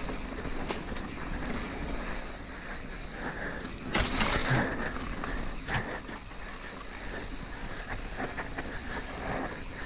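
Mountain bike (Rocky Mountain Altitude) descending a dry dirt singletrack: knobby tires rolling over dirt and stones, the bike rattling and wind on the microphone, with a louder harsh clatter about four seconds in.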